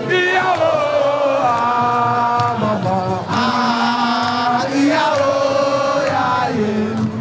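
Music with voices singing a chant in long held notes that glide between pitches.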